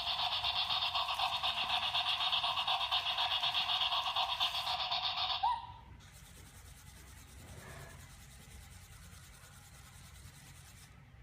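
Remote-controlled robot dog toy's small geared motor and wheels running, a steady rapid buzzing rasp that stops abruptly after about five and a half seconds.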